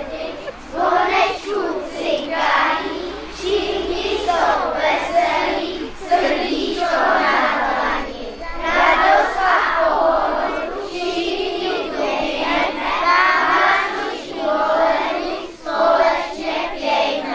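A group of children singing together as a choir, many voices at once, in phrases a second or two long.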